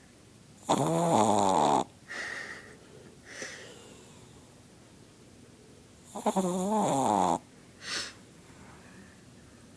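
A Chihuahua snoring loudly: two long snores about five and a half seconds apart, each lasting about a second, with softer breaths between them.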